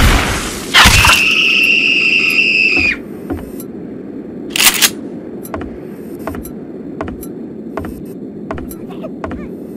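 Shotgun blast sound effect, followed by a steady high-pitched ringing that cuts off about three seconds in. A second sharp bang comes near five seconds, then a low steady drone with faint scattered clicks.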